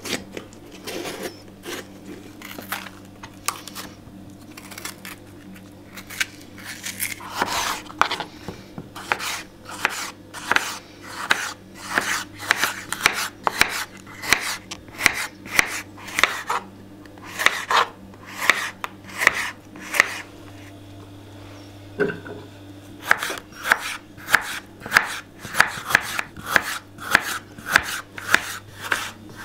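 Knife chopping food on a cutting board in a steady run of strokes, about two a second, with a short pause about two-thirds through. A low steady hum runs underneath.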